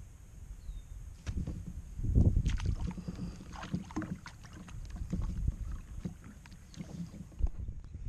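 Irregular knocks, bumps and rubbing against a plastic sit-on-top fishing kayak's hull and gear while a small trout is handled, the loudest burst about two seconds in.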